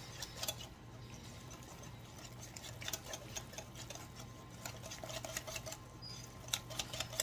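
Wire whisk beating thin waffle batter in a bowl, its wires ticking quickly and unevenly against the bowl's sides.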